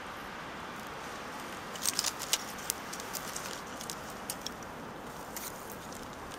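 Small fire of thin dry wood shavings and feather sticks crackling as it catches, a quick cluster of sharp snaps about two seconds in and then scattered single pops, over a steady background hiss.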